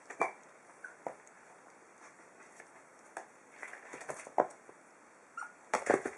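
Five-week-old puppies play-fighting: scattered short yips and squeaks mixed with scuffling. The busiest and loudest flurry comes near the end.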